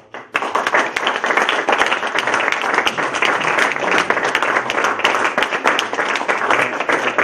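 Audience applauding, many hands clapping at once. It starts abruptly a moment in and holds steady.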